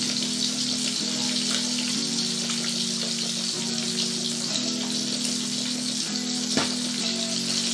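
Bilong-bilong fish frying in hot oil in a wok: a steady crackling sizzle. Soft background music plays under it, with held chords that change about once a second.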